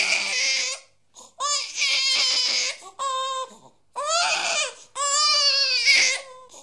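An infant crying: a string of loud, pitched wails, each about a second long, with short gaps between them.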